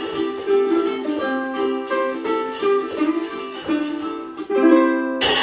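Two ukuleles strumming chords in a brisk, even rhythm, with no singing. They close on a loud final chord struck about five seconds in.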